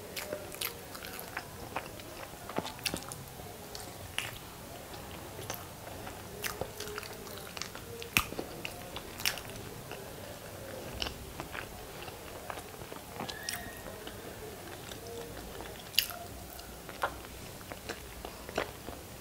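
A person biting and chewing hard-boiled eggs coated in masala gravy, picked up close by a clip-on microphone: irregular sharp mouth clicks and smacks.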